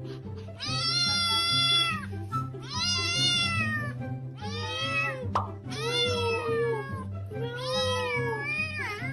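A cat meowing over and over, about five long drawn-out meows of roughly a second each, over background music. A short sharp click comes about halfway through.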